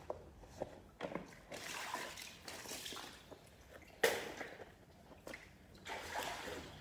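Water splashing and sloshing in irregular spells, with a sudden loud splash or knock about four seconds in.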